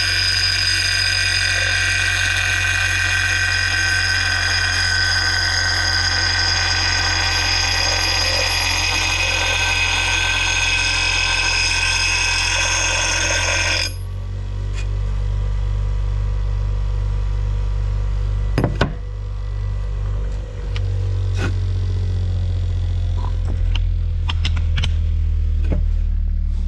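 Axe blade held against a running bench grinder wheel: a loud, high-pitched ringing grind of steel on the stone that stops suddenly about 14 seconds in. The grinder's motor then keeps running with a steady low hum, with a few sharp knocks near the end.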